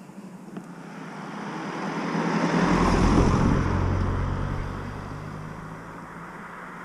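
A vehicle driving past on the road: engine and tyre noise swell to a peak about three seconds in, then fade away.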